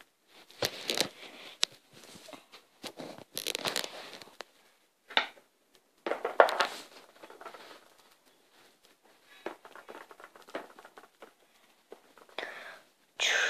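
Handling noises: irregular rustling and crinkling with light knocks and taps as dollhouse pieces and fabric scraps are moved about by hand, with short quiet gaps between.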